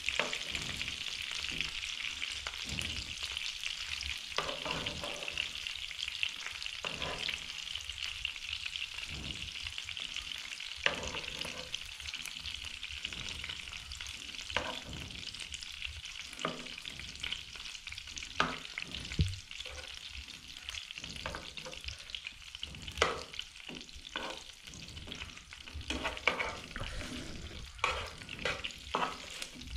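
Mantis shrimp and fish pieces sizzling in hot oil in a frying pan, with a steady hiss. Metal tongs click and scrape against the pan as the pieces are turned, the clicks coming more often near the end.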